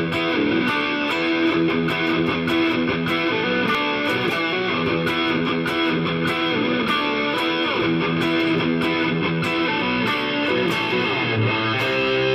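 Electric guitar music, a run of picked notes and chords changing steadily throughout.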